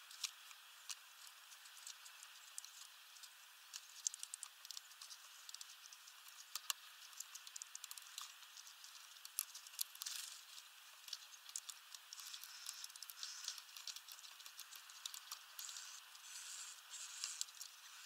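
Small birds, a great tit and a bullfinch, pecking at sunflower seeds on a feeder. The sound is faint, irregular sharp taps and clicks of beaks on seeds and the wooden perch, with short rustling of husks. It grows busier about halfway through.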